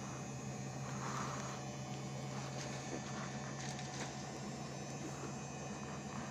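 Indesit washing machine running a wash cycle: a steady motor hum with soft swishes from the drum and water.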